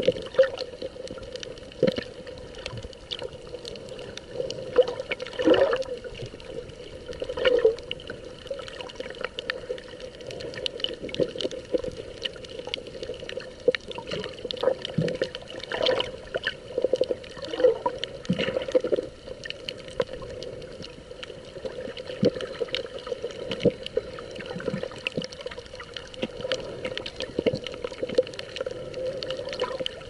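Sea water heard through a submerged camera: bubbling, sloshing water movement with many small clicks and knocks, and a steady muffled hum underneath.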